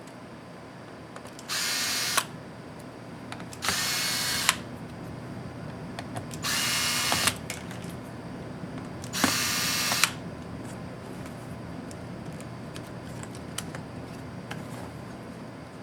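Small electric screwdriver whirring in four short spins, each under a second, driving out the laptop's case screws, with light clicks of handling in between.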